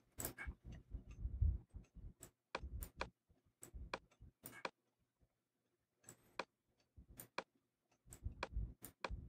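Faint, irregular clicking of a computer mouse being clicked and dragged, a dozen or so sharp ticks with a pause of about a second past the middle.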